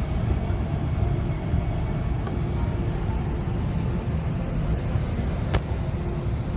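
Steady low rumble inside an SUV's cabin, with one sharp click about five and a half seconds in.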